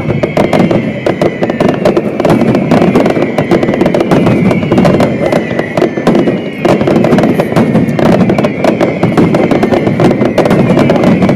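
Fireworks display with a dense, continuous run of bangs and crackling, and high whistling tones sliding down in pitch above them.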